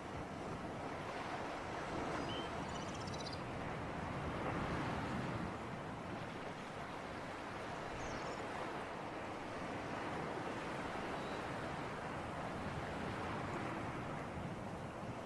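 Sea breeze and surf: a steady wash of wind and waves that swells and eases gently, with a few faint, short high chirps.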